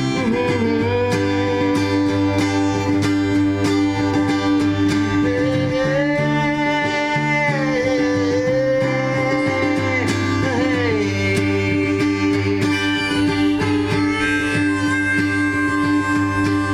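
Instrumental break in a live folk song: a harmonica plays a solo of long held, bending notes over strummed acoustic guitar.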